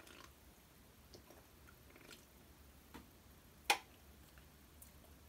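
Faint mouth sounds of a person sipping and tasting a drink from a can, with a few small ticks and one sharp click about three and a half seconds in.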